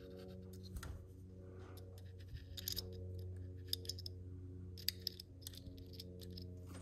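Scattered small clicks and ticks of a Sig P365 pistol frame and its metal fire-control parts being handled while a needle-tip oiler touches them, over a steady low hum.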